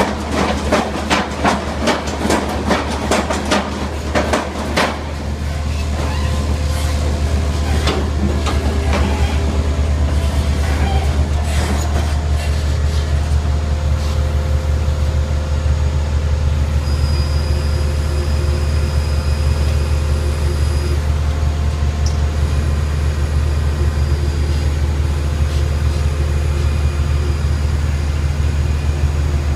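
TESCAR CF3 mini piling rig at work: a steady low engine drone, with a quick run of metallic clanks and knocks over the first five seconds or so.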